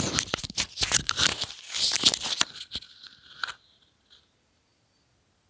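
Sound effects of an animated outro screen: a quick, dense run of crackling, tearing clicks and swooshes that stops suddenly about three and a half seconds in.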